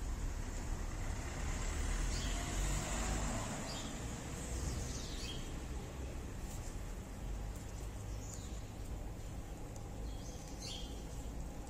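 Outdoor ambience: a steady low rumble like distant traffic, with faint, short, high falling chirps every second or so, bird-like.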